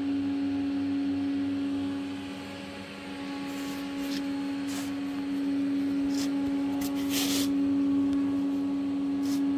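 A steady low mechanical hum on one held tone, with a few short hissy clicks over it.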